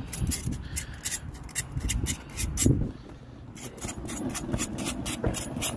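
Propane torch burning with a steady rush while a knife scrapes the singed hair and skin off a pig head in quick, repeated strokes, about three a second, with a short break about three seconds in.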